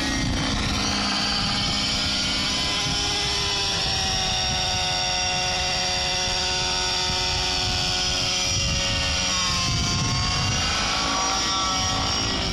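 T-Rex 700 radio-controlled helicopter with a petrol engine, running in flight. Its engine and rotor note shifts as the speed changes: it rises at the start, dips about nine seconds in, then climbs again.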